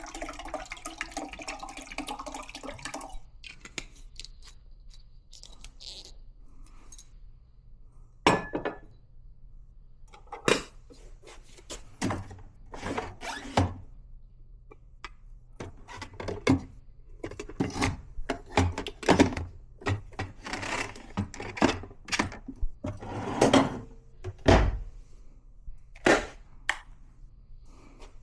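Water running for about three seconds, then a long irregular series of knocks, clicks and clinks as small hard parts of espresso gear are handled and set down.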